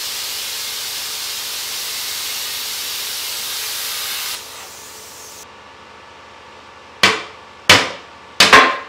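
Electric welding arc hissing steadily for about four seconds, then a fainter hiss that stops. A hammer then strikes the steel stove plate four times, the last two in quick succession, each blow ringing briefly.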